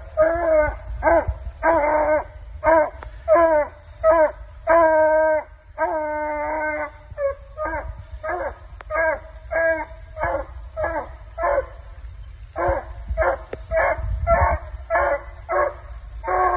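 Coonhound puppies barking treed: a steady run of pitched barks, about two a second, broken by two longer drawn-out bawls about five and six seconds in.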